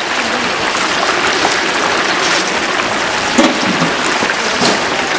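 Battered fritters (twigim) sizzling steadily in a large pot of hot deep-frying oil.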